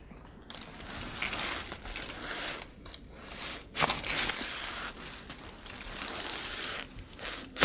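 Rustling and crinkling of a patient shifting on a chiropractic treatment table, with a sharp click about four seconds in and a louder one near the end.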